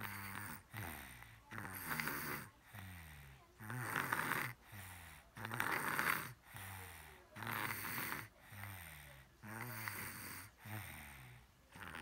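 Sleeping toddler snoring through an open mouth: a regular snore on every breath, about one big breath every two seconds, each mixing a low buzz with a harsh rasp.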